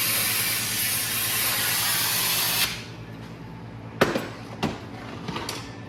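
A loud, steady hiss that cuts off suddenly about two and a half seconds in, followed by a sharp metallic clank about four seconds in and a couple of lighter knocks.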